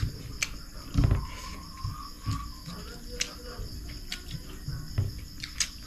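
Crickets chirping steadily in the background, with soft clicks and a dull knock about a second in from eating by hand off a plate.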